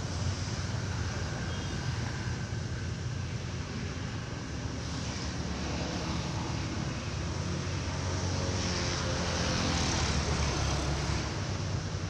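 Steady low engine drone, swelling louder about eight seconds in and easing off near the end.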